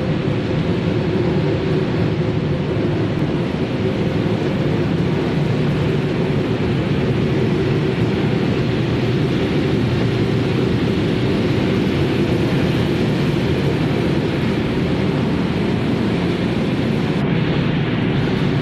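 Steady, loud running noise of a cereal-flake extrusion line's machinery: motors, extruder and conveying equipment making a dense, even hum-and-rush with no distinct strokes.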